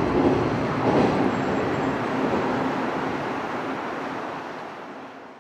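Freight train running on the rails, wheels clattering over the track; the noise slowly fades away over the last couple of seconds.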